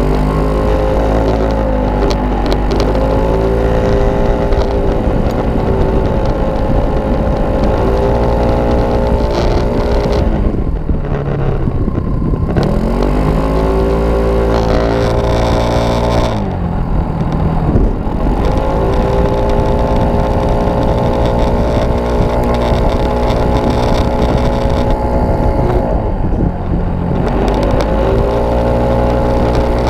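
Kymco Racing S scooter's single-cylinder four-stroke engine running hard around a track. Its pitch climbs, holds level for several seconds at a time, then falls as the throttle closes, about four times, before climbing again, over steady wind and tyre noise.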